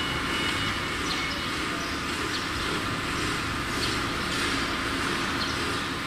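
Vertical glass washing machine running: a steady mechanical noise of its washing and drying section, with a few faint short high squeaks.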